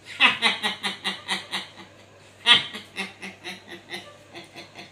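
A man laughing in rapid rhythmic bursts, about four a second, in two bouts; the second begins loudest and gradually trails off.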